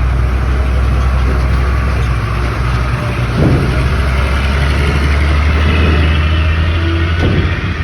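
Truck engine running with a steady low note, its pitch sweeping up and down briefly about three seconds in and again near the end as it is revved.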